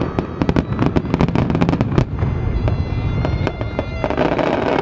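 Fireworks display: a fast volley of aerial shell bangs and crackling, thinning to scattered pops after about two seconds, then thickening again near the end.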